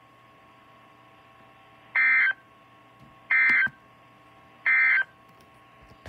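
Three short bursts of raspy two-tone data signal from an Emergency Alert System weather-radio broadcast, the SAME end-of-message code that closes the warning, each about half a second long and about a second apart, over a faint steady hum.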